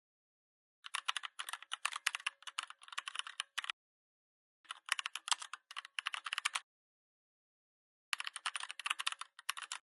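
Rapid computer-keyboard typing clicks in three bursts of two to three seconds each, with dead silence between the bursts.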